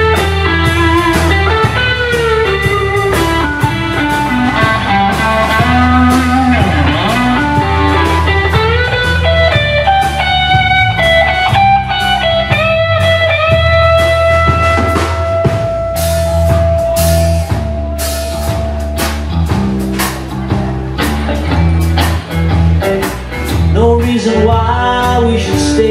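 Live blues-rock band playing an instrumental break: an electric guitar lead bending notes over electric bass and drum kit. About halfway through, the guitar holds one long note for several seconds while the cymbals grow busier.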